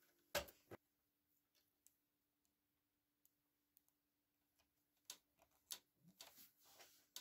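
Near silence broken by scattered small clicks and taps as hands work the scroll saw's upper blade clamp, fitting a fine fretsaw blade. A faint steady hum runs underneath.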